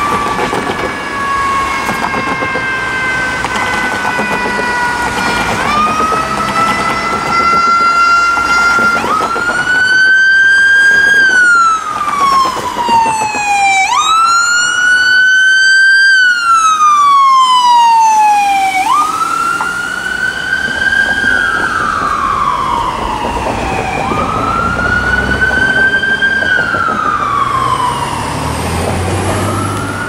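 Ambulance's Whelen electronic siren playing its mechanical tone, which imitates a spinning mechanical siren. Each cycle winds up quickly, holds briefly and then slowly falls away, repeating every few seconds as the ambulance drives past, over a background of city traffic.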